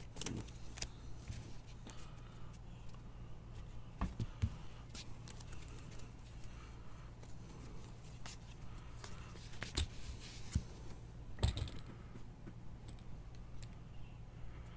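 Trading cards being handled, flipped and set down on a table mat: scattered light clicks and taps over a steady low hum, with the firmest taps about four seconds and eleven seconds in.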